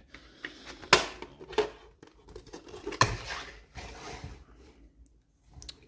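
Hard plastic toy parts being handled: a few sharp clicks and knocks, the loudest about a second in, with light scraping and rubbing between.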